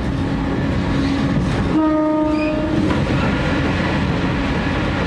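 Diesel railcar running along the line, with a steady engine drone and rail noise. It sounds its horn once for about a second, about two seconds in, as it runs into a tunnel.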